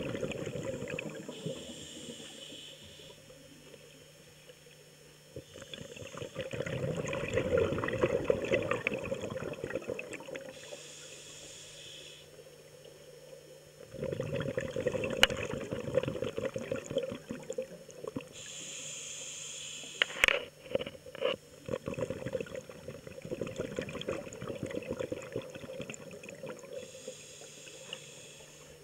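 Scuba diver breathing through a regulator underwater: four short hissing inhalations, each followed by a longer exhalation of bubbles crackling and rumbling out of the exhaust, about one breath every eight or nine seconds. A few sharp clicks come about two-thirds of the way in.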